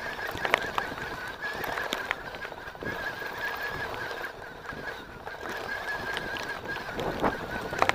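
Mountain bike rolling down a dry dirt trail with a steady high-pitched squeal from its disc brakes held on, over a rattle of tyres and frame with sharp knocks from stones.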